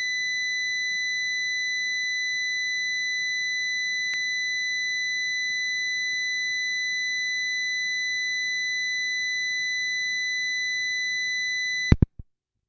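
A loud, steady, high-pitched electronic hum: one unwavering tone with a stack of overtones. It cuts off abruptly near the end with a click.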